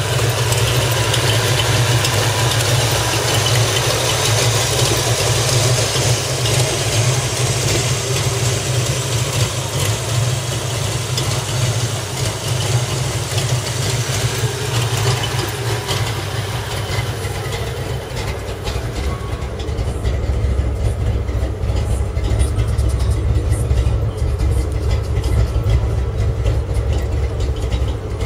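Ford Mustang 5.0 V8 idling steadily, heard up close. About two-thirds of the way through the sound turns deeper and duller as the hiss above it falls away.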